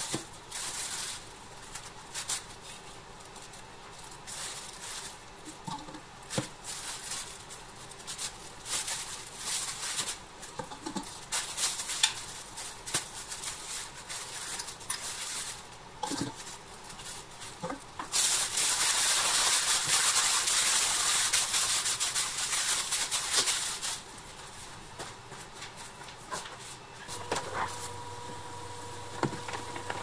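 Hand work on metal toy parts: scattered clicks, taps and short scrapes. About 18 s in comes a loud hissing rush lasting about five seconds. Near the end a small motor starts a steady humming whine.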